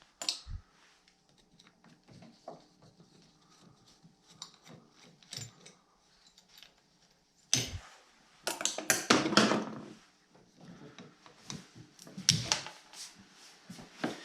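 Plastic snowmobile throttle block being forced open with its back screws still in, the cold, brittle plastic cracking. Light clicks and taps of handling, then a sharp crack about seven and a half seconds in, a run of loud cracking and scraping, and another loud crack a couple of seconds later.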